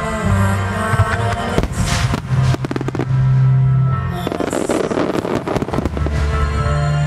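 Aerial fireworks shells bursting in quick volleys, thickening into dense crackling about four seconds in, over loud music.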